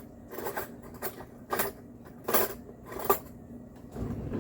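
A utensil clinking and scraping against a dish five or so times, irregularly spaced, as cooked greens, mushrooms and chicken are spooned onto the cut-up tortilla shells.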